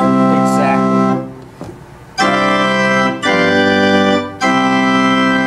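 Von Beckerath pipe organ playing four full, bright held chords, each about a second long, with a gap after the first. A mixture stop, which sounds three or four pipes per key, is added to the ensemble.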